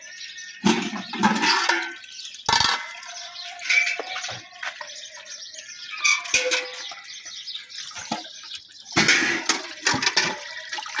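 A steel milk pail being rinsed in a water trough: water sloshing and splashing in irregular bursts, loudest and thickest about nine seconds in as the pail is dipped.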